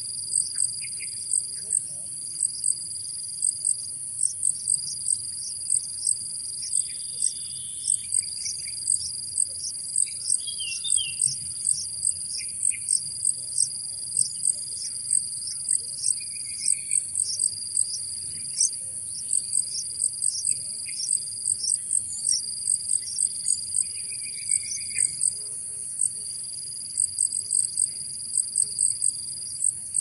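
Insects chirping in a steady high-pitched chorus, with sharp regular pulses about three a second over a continuous drone. Faint short bird chirps come now and then.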